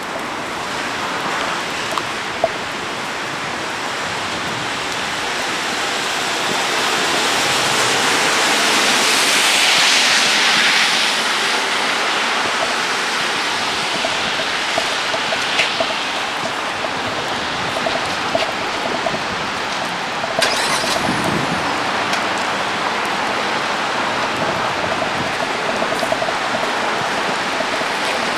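Steady outdoor hiss of rain and traffic on wet roads, swelling as a vehicle passes about ten seconds in, with a few faint clicks.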